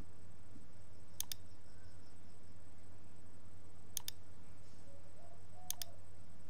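Computer mouse button clicking three times, a couple of seconds apart, each a quick press-and-release double click, over a steady low hum.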